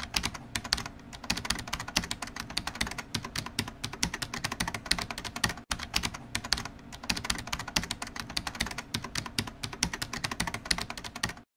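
Fast, continuous clicking like rapid typing on a computer keyboard, a typing sound effect, with a brief break about halfway through.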